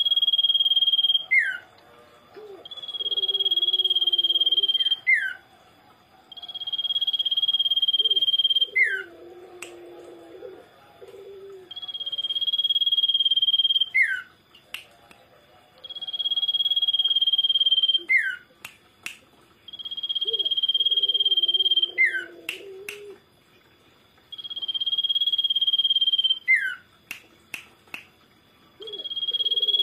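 Common iora singing its 'sirtu' call over and over: a long, steady high whistle held for about two seconds that ends in a quick falling note, repeated about every four seconds.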